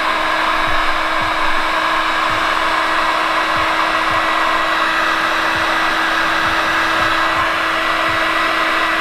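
Electric heat gun blowing steadily: a rushing stream of hot air over a constant motor hum, shrinking adhesive-lined heat-shrink tubing onto a crimped ring terminal.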